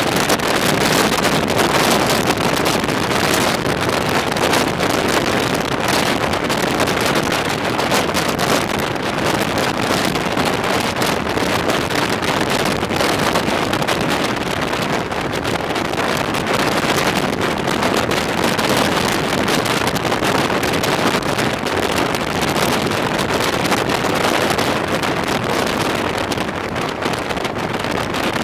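Loud, steady rush of wind buffeting the microphone at the open window of a moving non-air-conditioned passenger coach, mixed with the train's running noise.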